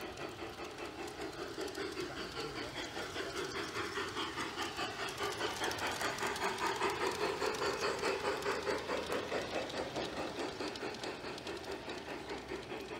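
G scale model steam locomotive chuffing in an even rhythm, about three to four chuffs a second, as it runs past. It grows louder toward the middle as it comes close, then fades.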